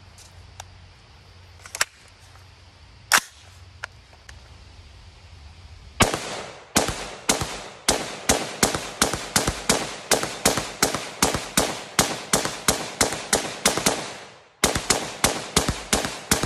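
Rapid rifle fire: a fast string of sharp shots, about three a second, each with a short echo, starting about six seconds in, with a brief break near the end before the shooting resumes. Before the shooting, a few light clicks.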